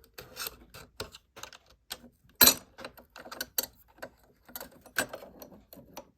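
Irregular light metallic clicks and clatter as a sewing machine's needle plate is being taken off, with the sharpest click about two and a half seconds in.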